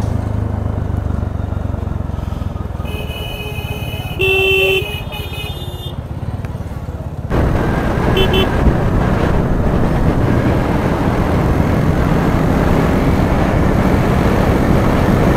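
Bajaj Dominar motorcycle being ridden, engine and road noise running, with vehicle horns honking in the street about three to five seconds in. About seven seconds in the sound jumps to a louder rush of wind and engine that grows steadily as the bike speeds up, with a short horn toot soon after.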